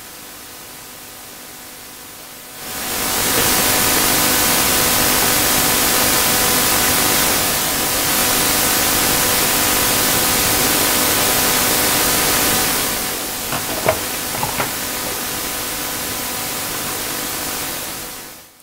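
Loud, steady static-like hiss that starts about three seconds in, drops slightly around thirteen seconds and cuts off near the end, over a faint steady electrical hum, with a few clicks around fourteen seconds.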